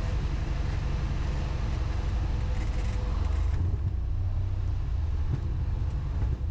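Piper Cherokee Six's single piston engine and propeller droning steadily, heard from inside the cabin.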